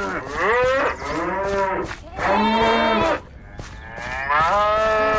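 Cows mooing: a string of long, drawn-out moos one after another, four full calls following the end of another, with a short pause after the fourth and the last one running on at the end.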